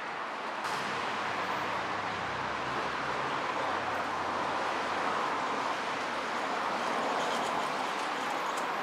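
Steady rush of city street traffic, with no distinct events.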